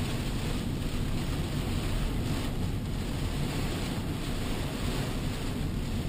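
Steady rush of heavy rain and wet-road noise heard inside the cabin of a Honda Odyssey minivan driving on a highway through a storm.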